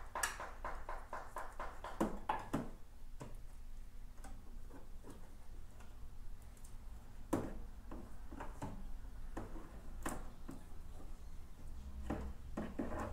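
Scattered light clicks and taps of wiring and plastic connectors being handled and fed through a scooter's frame, over a faint low hum.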